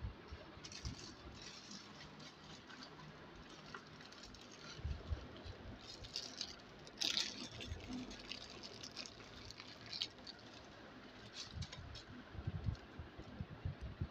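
Scattered soft knocks and rustles from a phone being handled as it moves over a glass plate, with a louder rustle about seven seconds in.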